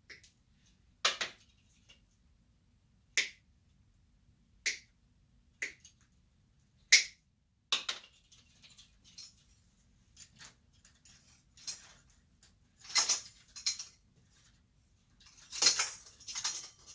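Sharp, irregular clicks and snaps of a hand tool and metal fittings as old wire and hardware are stripped out of a metal chandelier, with louder metallic rattling and clinking from the chandelier's parts about two-thirds through and near the end.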